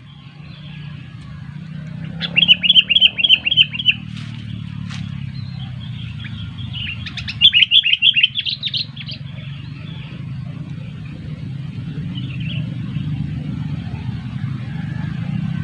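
Sooty-headed bulbul (kutilang) calling in two bursts of fast repeated chattering notes, about five a second, the second burst rising in pitch at its end. A steady low rumble runs underneath.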